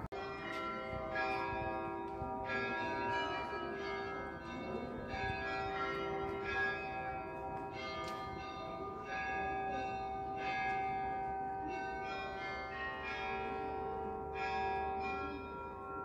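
Several church bells rung together, Orthodox style, with several pitches sounding at once. A fresh strike comes every half second to a second, and each one rings on under the next.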